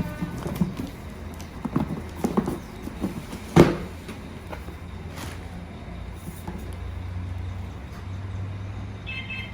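Hands handling a drone and its packaging: a run of knocks and clicks, the loudest about three and a half seconds in, over a steady low hum.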